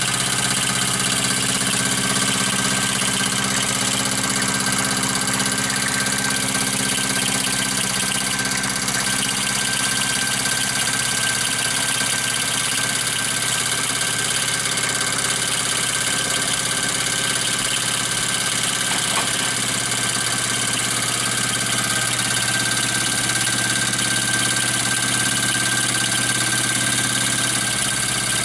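Small model traction engine running steadily: a constant hiss over a low mechanical hum, with a thin high steady tone throughout.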